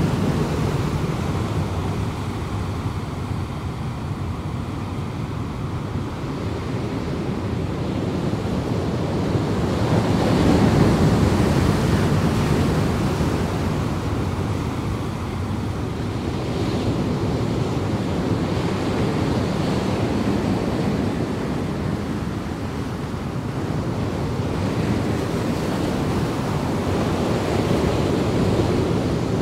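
A steady rushing noise, strongest in the low range, that swells and eases slowly over many seconds.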